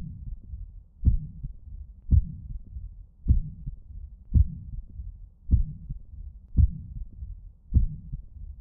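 Recorded heart sounds heard through a stethoscope: low-pitched thumps about once a second over a steady low rumble. The recording is offered as an example of a third heart sound (S3), a very soft, low-pitched sound just after the second heart sound, heard at the mitral area.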